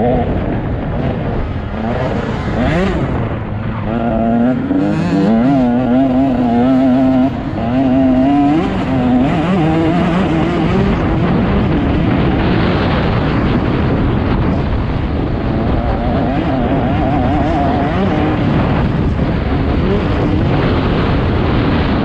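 Motocross dirt bike engine running hard under racing throttle, its pitch wobbling quickly and rising and falling as the rider works the throttle and gears.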